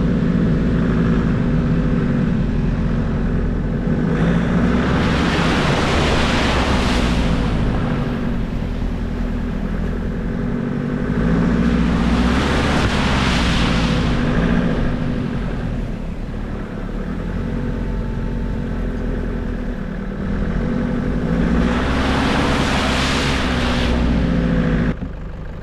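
Four-wheel-drive vehicle driving slowly along a bumpy bush track, its engine running with a note that rises and falls. Three times, several seconds apart, a rush of splashing swells up and dies away as the vehicle goes through puddles.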